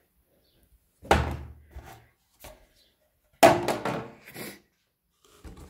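Cardboard box being handled: two dull thumps, each followed by a short rustle, about a second in and again at about three and a half seconds, the second louder.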